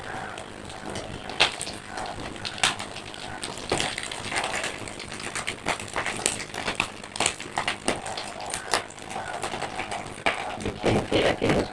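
Metal spatula clinking and scraping against a steel kadhai as fried fish are turned and lifted out of the hot oil: irregular sharp clinks and knocks, several a second at times.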